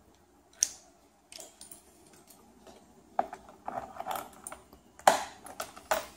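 A bunch of keys jangling and clicking as a key is put into the ignition key switch of an electric ATV, with several sharp clicks, the loudest about five seconds in.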